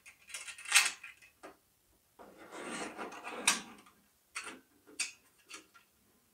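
Thin sheet-metal parts of a model rock-bucket kit clicking and scraping as they are handled and fitted together by hand: a few sharp clicks in the first second, a longer scraping rattle with a sharp click in the middle, then several light clicks near the end.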